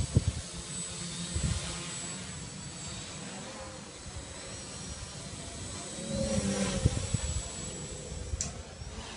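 Quadcopter drone on an S500 frame, its motors and propellers whirring steadily in flight, heard over ragged low wind rumble on the microphone.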